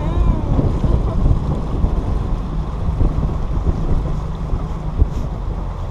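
Small motorboat under way: the engine's steady low drone mixed with wind buffeting the microphone.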